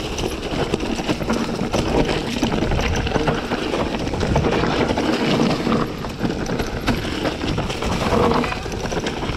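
Mountain bike clattering over a rocky trail: tyres crunching and knocking on loose stones and the bike rattling, in a dense, unbroken run of knocks.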